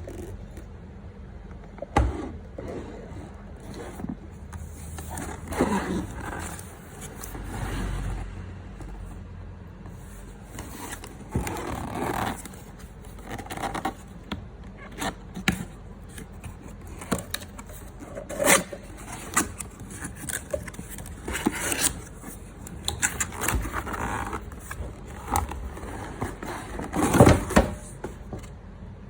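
Irregular clicks, knocks and scraping of objects being handled, with a louder knock about two seconds in and a louder clatter near the end.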